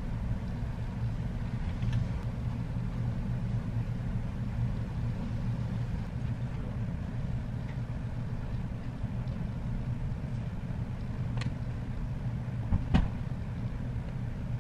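Steady low hum, with two brief clicks near the end.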